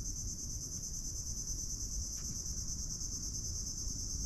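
Steady insect chorus from the surrounding trees: a high, fast-pulsing shrill buzz that does not let up, with a low rumble beneath.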